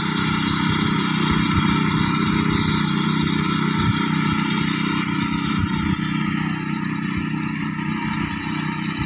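Engine of a paddy-harvesting machine running steadily under load, with a constant low rumble and a stack of steady tones. It drops slightly in level about six seconds in.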